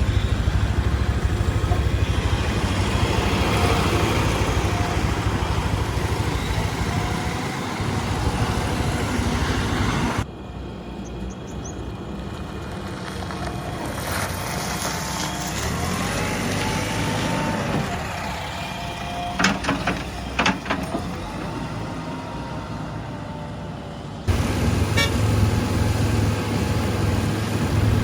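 JCB 3DX backhoe loader's diesel engine running at work. About ten seconds in the sound drops abruptly to a quieter stretch where a whine rises and falls and a few sharp clicks sound, then the loud running cuts back in near the end.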